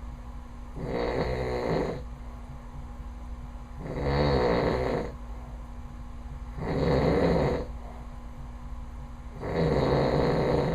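A man snoring loudly in his sleep: four snores, each about a second long, coming roughly every three seconds.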